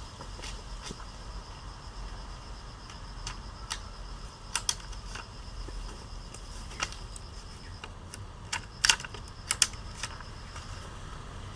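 Hand-held tapener (vine-tying tape tool) clicking and snapping as it is worked to wrap, staple and cut tape around a plant stem and its stake. Sharp clicks come at irregular intervals, the loudest in a quick cluster of snaps about nine seconds in.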